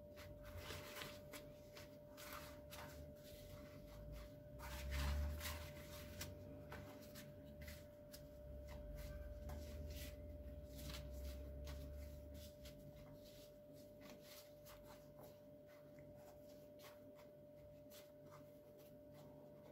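Dry yufka pastry sheets being torn into pieces and laid in a pan by hand: faint papery rustling and crinkling, with many small crackles, over a steady faint tone.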